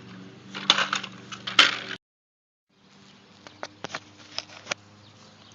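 A burst of sharp clattering knocks, a sudden cut to dead silence, then a few light clicks over a faint steady hum.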